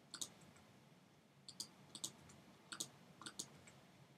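Faint clicks of a computer keyboard and mouse in a quiet room: the S key tapped for Blender's scale command and mouse clicks confirming it and selecting faces. About a dozen short clicks, several in quick pairs.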